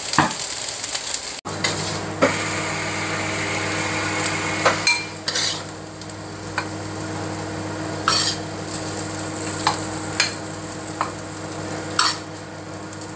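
Metal spatula scraping and knocking against a stainless steel wok as fried rice is scooped into a bowl, with a sharp scrape or clink about every second. A steady low hum runs underneath.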